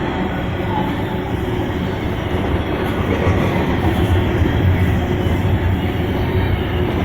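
Freight train rolling past, a steady loud rumble of wheels on rail with a low drone that strengthens a little from about three seconds in.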